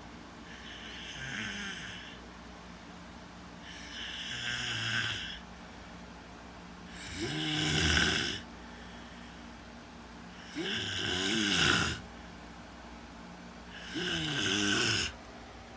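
Snoring: five slow snores, one about every three seconds, each lasting a second or so, with the last three louder than the first two.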